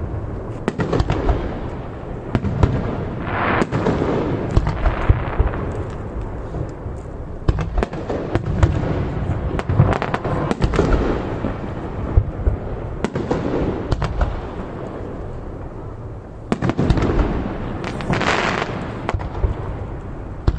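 Aerial fireworks display: shells bursting in many booms in quick succession, with stretches of dense crackling.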